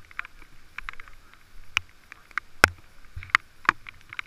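Scattered sharp taps and clicks close to a helmet-mounted camera, about ten at irregular intervals over a faint hiss, the loudest about two and a half seconds in.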